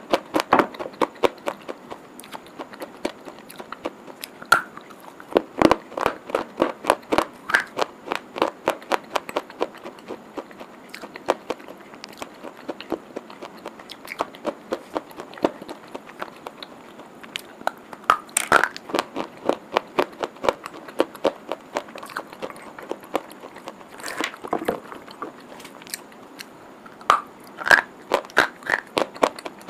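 Slate pencils bitten and chewed: dense runs of sharp, gritty crunches from the teeth, coming in bursts with short lulls between.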